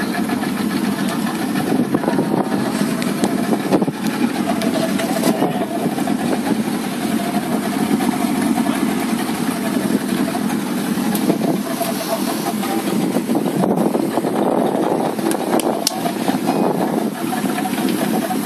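A motorboat's engine running steadily, heard from on board.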